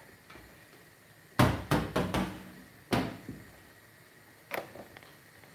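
Saucepan of drained spaghetti knocking and clunking against a stainless steel sink and draining board as it is handled and set down: a quick run of knocks about a second and a half in, another about three seconds in, and a lighter one near the end.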